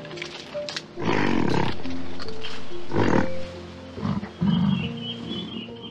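Loud, rough animal roars over background music: one long roar about a second in, another about three seconds in, and a shorter growl near the end.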